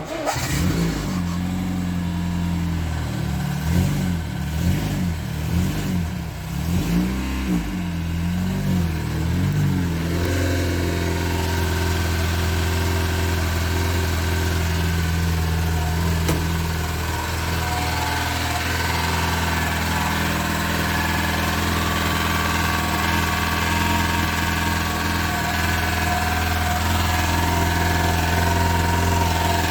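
VAZ-2106 (Zhiguli) inline-four engine catching and running on a restart, its revs rising and falling unevenly for about the first ten seconds, then settling into a steady idle.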